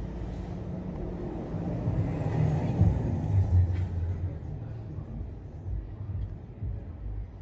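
A low rumble that swells about two seconds in and then fades.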